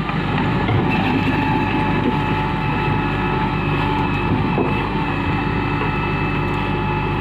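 JCB backhoe loader's diesel engine running steadily, a constant drone with a higher whine over it.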